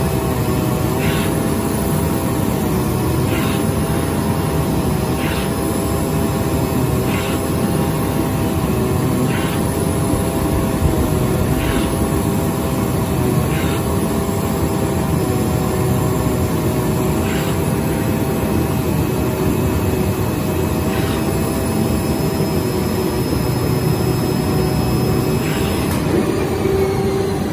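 CNC oscillating knife cutting machine running while its knife cuts sponge foam: a steady loud mechanical drone with a whine whose pitch dips every couple of seconds, and brief higher sounds at about the same pace.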